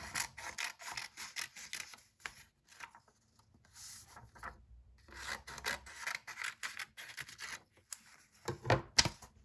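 Sheets of paper rustling and rubbing as they are handled and slid over a wooden board, in two spells of crackling with a quiet pause between, then a few louder knocks near the end.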